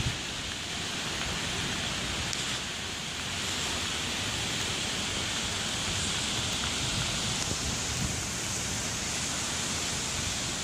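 Heavy rain falling steadily, an even hiss with no break.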